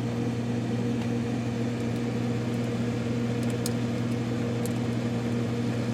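Steady electrical hum of a 1987 GE refrigerator running, with a few faint ticks in the middle.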